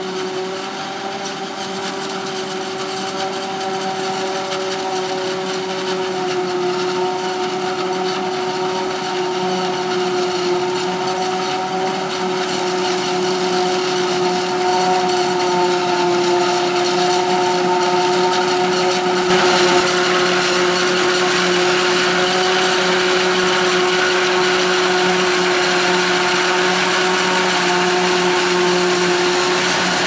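Claas Jaguar 840 forage harvester chopping maize and blowing it into a trailer, with the tractor running alongside: a steady high whine over machine noise. The sound grows louder as the machines come closer, and a rushing hiss of crop and engine joins in about two-thirds of the way through.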